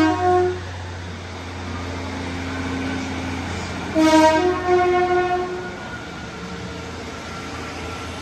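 Train horn sounding a short low-then-high two-note blast right at the start and again about four seconds in, over the steady low hum of an idling diesel engine.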